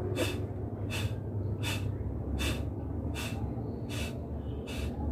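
Kapalbhati breathing through the left nostril alone, with the right nostril held shut: sharp, forced nasal exhalations at an even pace of about one every three-quarters of a second, seven in all. A steady low hum runs underneath.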